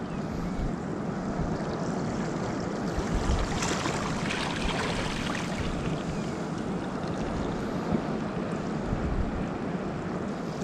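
Small waves lapping and washing against a rock shelf at the water's edge, a little louder about four seconds in.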